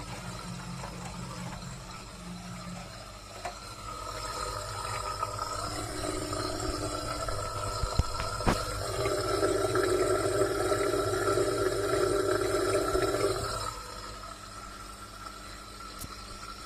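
LG washing machine running with water rushing through it. The sound swells about four seconds in, carries two sharp clicks midway, and cuts off abruptly a few seconds before the end.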